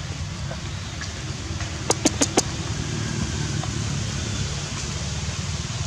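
A steady low rumble of background noise, with four quick sharp clicks about two seconds in.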